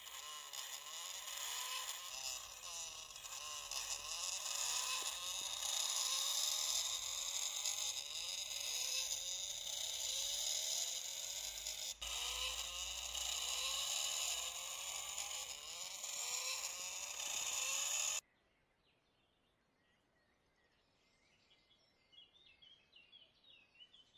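Dense chorus of insects with many repeated chirps, cutting off abruptly about three-quarters of the way through. Faint short bird chirps follow near the end.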